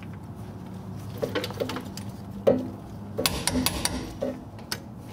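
Torque wrench and socket on brake caliper bracket bolts: a string of irregular sharp metallic clicks and clinks as the bolts are tightened to 85 ft-lb.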